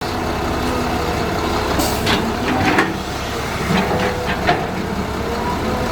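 Heavy diesel machinery running steadily with a low, even rumble, with a few short hisses and knocks about two to three seconds in and again around four and a half seconds.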